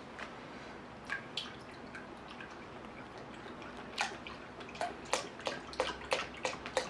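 Grape juice poured from a carton into a large stainless steel bowl of liquid gelatin, splashing and plopping irregularly from about four seconds in. A few faint clicks come before the pour.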